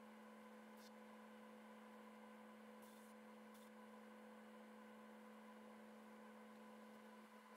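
Near silence: a steady low electrical hum, with a few faint, brief hisses.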